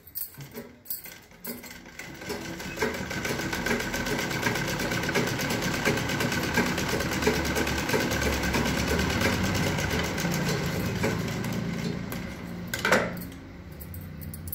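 Satyam domestic sewing machine running at a steady, fast stitch after a few clicks at the start. It stops near the end with a sharp click.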